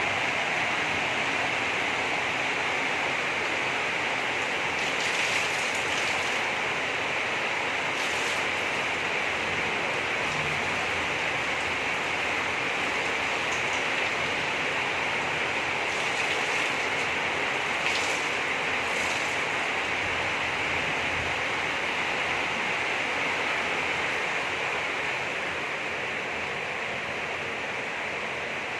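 Heavy rain falling in a steady, continuous hiss, a little softer in the last few seconds.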